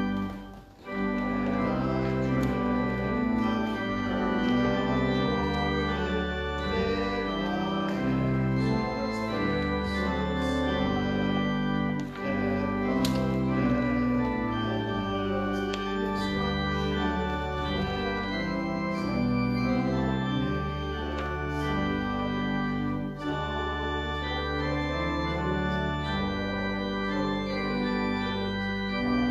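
Organ playing slow sustained chords that move from one to the next, with a short break about a second in.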